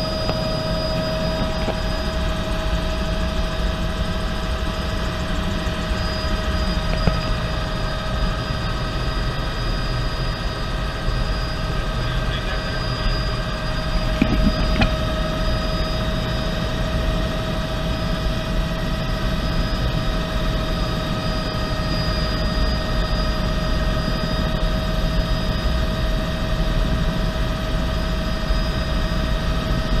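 Bell 206B3 JetRanger helicopter in steady flight, heard from inside the cabin: the constant whine of its Allison 250 turboshaft engine over a low rumble of rotor and airflow.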